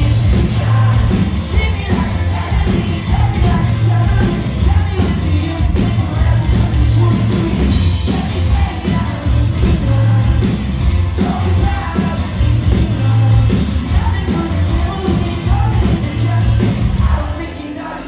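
Live pop-rock band playing loudly, with a singer over drums, bass and guitar; the sound dips briefly near the end.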